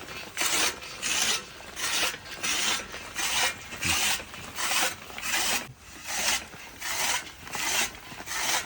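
Restored 40-year-old hand-cranked chaff cutter slicing fodder: a steady run of rasping cuts about every 0.6 seconds as the blades pass through the feed.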